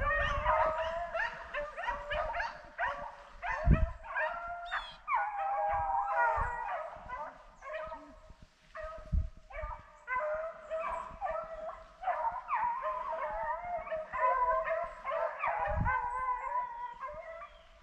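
Rabbit hounds baying on a chase, several voices overlapping in near-continuous long and short calls. A few dull thumps sound in between, the loudest about four seconds in.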